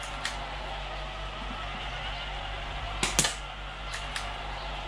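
Two sharp cracks of a BB pistol firing in quick succession a little after three seconds in, followed by two fainter clicks, over a steady low hiss.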